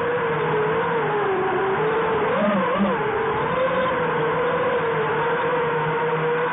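Whine of a QAV 250 racing quadcopter's four brushless motors and propellers in flight, heard close from its onboard camera. The pitch wavers with throttle, with a couple of quick rises and falls about two and a half seconds in.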